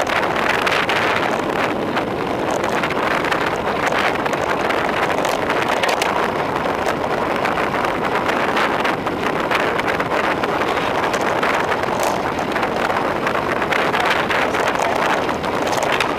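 Steady rush of wind over a handlebar-mounted camera's microphone on a road bike descending at speed.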